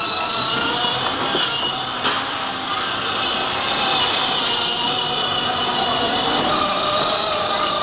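Children's plastic ride-on toy cars rolling over a tiled floor: hard plastic wheels rattling, with the steady whine of a small electric ride-on car's motor and gears.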